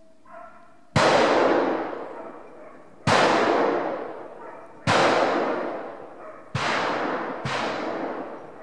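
Five gunshots in about six and a half seconds, the last two less than a second apart, each a sharp crack followed by a long echoing decay.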